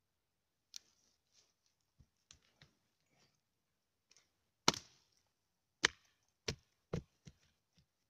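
Sharp wooden knocks close to the microphone as a dead branch is moved about and knocks against wood. A few faint ticks come first, then a loud knock about halfway through and four more knocks in quick, uneven succession.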